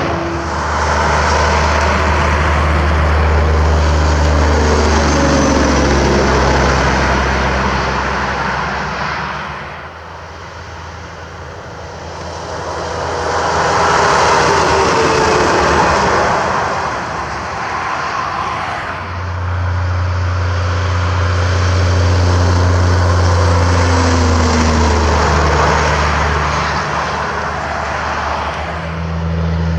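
Semi trucks passing on a highway one after another: low diesel engine hum with tyre noise, swelling and fading as each goes by, with a lull about a third of the way through.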